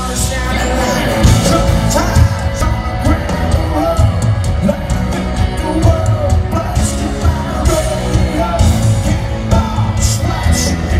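Live country band and lead singer performing through a concert PA system, heard from within the crowd, with shouts from the audience.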